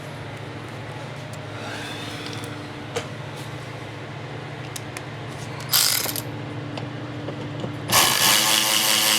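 Cordless drill backing out bumper-cover screws: a short burst about six seconds in, then running steadily from about eight seconds in, over a steady low hum.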